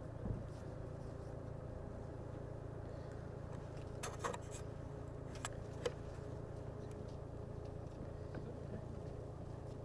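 Parked army helicopter's engine running on the ground, a steady low hum with a faint steady tone over it. A few sharp clicks come around the middle.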